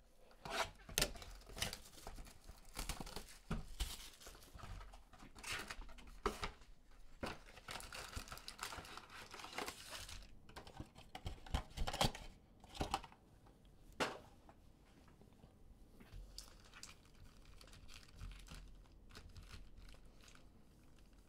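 Cardboard trading-card box being torn open and its foil-wrapped packs handled: sharp tearing and crinkling in short bursts for the first dozen seconds or so, then only faint rustling of the packs near the end.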